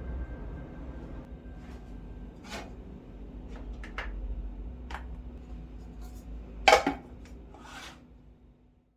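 Scattered clinks and knocks of dishes and utensils being handled in a kitchen, the loudest clatter about two-thirds of the way through, over a low steady hum.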